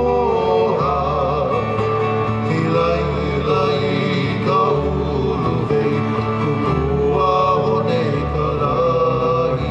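A Hawaiian love song for hula, sung by a voice with vibrato over guitar and a steady, repeating bass beat.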